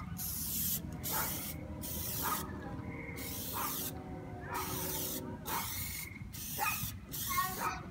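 Aerosol can of Plasti Dip spraying in several short bursts with brief pauses between them, laying a first coat onto a paper-masked car tail light.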